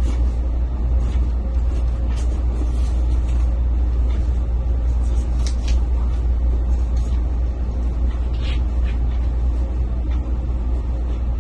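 A steady low rumble runs throughout, with a few short soft rustles of a pillowcase being worked onto a pillow, a couple of them close together about five and a half seconds in.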